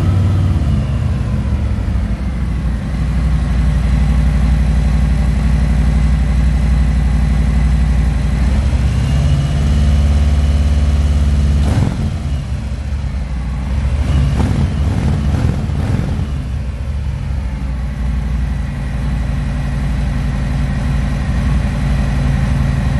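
Harley-Davidson Milwaukee-Eight 114 V-twin running through S&S slip-on mufflers with a throaty exhaust note, just after starting. It is on a raised idle at first, then settles, with a few short revs past the middle.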